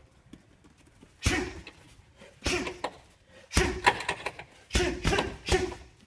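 Strikes landing on an Everlast heavy punching bag: about seven sharp thuds, spaced out at first and then coming in a quick flurry near the end.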